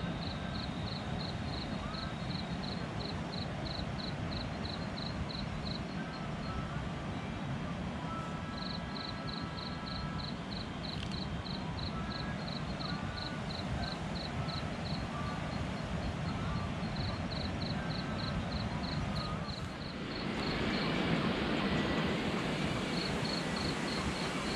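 An insect chirping in quick, even pulses, about five a second, in runs with short breaks, over a steady noise bed. About 20 seconds in, a louder rushing noise comes in.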